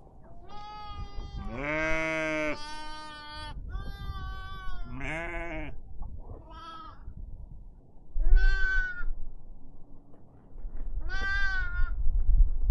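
Herd livestock bleating, several animals, about eight calls of different pitch, each under a second long.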